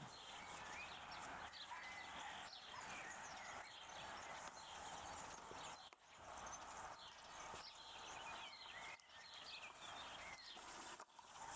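Faint outdoor ambience with small birds chirping over and over in the background. The sound briefly drops out about halfway through and again near the end.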